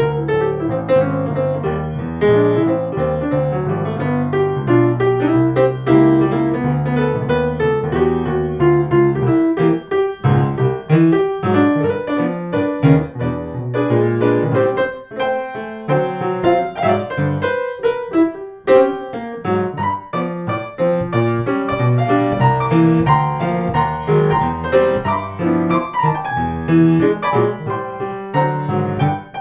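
Background piano music playing a blues tune.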